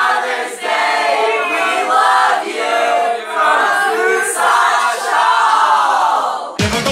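A group of young men and women singing together loudly in unison, with long held notes, without accompaniment. Near the end it cuts off and pop music starts.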